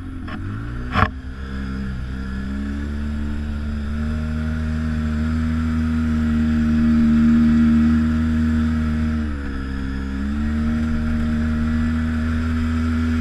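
ATV engine running loud and steady under way on the trail. Its pitch dips briefly near the end and then picks back up. There is a sharp knock about a second in.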